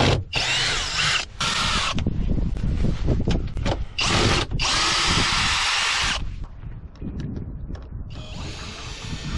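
Erbauer cordless drill running in about five short bursts, backing out the screws that hold a shipping crate to its wooden base.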